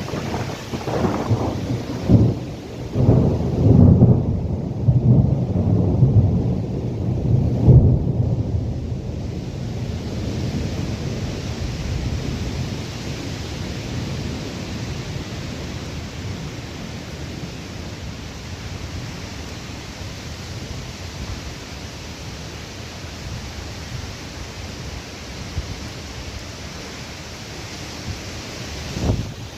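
Thunder rumbling in several rolling swells for roughly the first third, then fading into a steady hiss of rain and wind during a thunderstorm.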